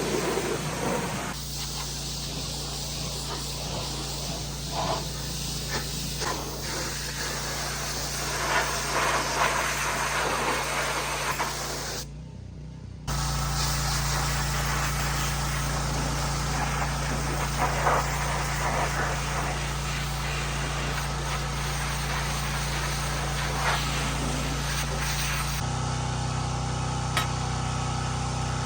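Pressure washer spraying, a steady hiss, over an engine running steadily underneath. The sound drops out briefly about twelve seconds in and changes again near the end.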